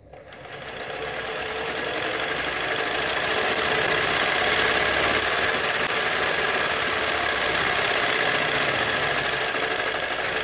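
Electric sewing machine motor, overvolted on a 440 V three-phase supply, starting up and spinning up over the first few seconds, then running loud and steady with a mechanical rattle.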